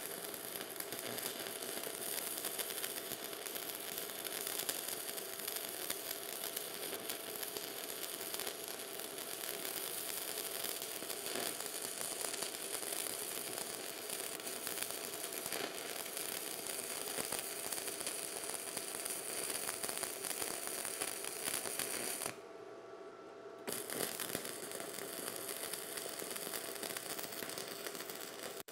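Stick (arc) welding with a 4 mm electrode: the arc gives a steady, even crackle as the rod burns off and melts into the steel plate at full output. The crackle breaks off for about a second roughly three-quarters of the way through, then picks up again.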